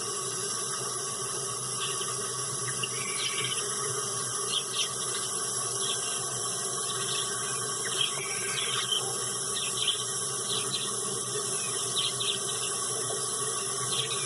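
Steady hiss like running water, with short, faint high bird chirps coming and going over it.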